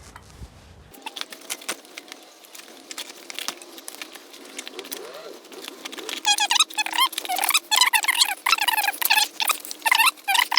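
Rubber bicycle tyre squeaking and scraping against the metal rim as its bead is prised off with a lever. Scattered clicks and scrapes at first, then a dense run of high, wavering squeaks from about six seconds in.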